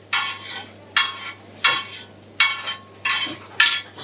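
Metal spatula scraping and pressing on a flat metal tawa in six short strokes, about one every two-thirds of a second, while a stuffed paratha fries in butter with a sizzle.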